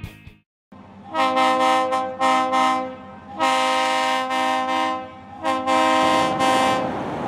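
Train air horn sounding a chord of several notes at once, blown in four blasts over about six seconds.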